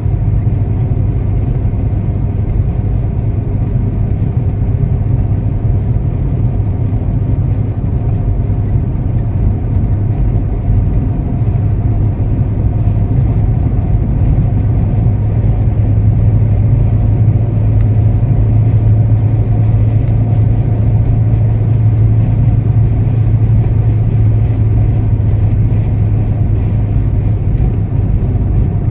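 Steady low rumble of a car driving, engine and road noise running evenly with no sudden changes.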